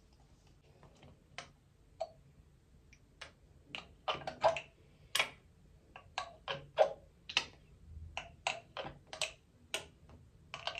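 Short, irregular clicks and pats of skincare being applied by hand: fingertips patting serum into the face and neck, and a glass dropper bottle being handled. They are sparse at first and come two or three a second from about four seconds in.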